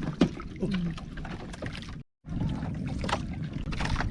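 Small boat at sea: a steady low rumble of water and wind against the hull, with scattered knocks and clicks from handling gear on board. The sound drops out completely for a moment about halfway through.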